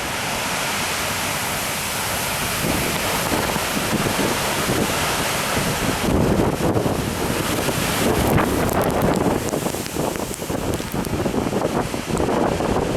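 Heavy typhoon swell breaking on a rocky shore, with wind buffeting the microphone. An even hiss gives way about six seconds in to a lower, uneven surging rumble.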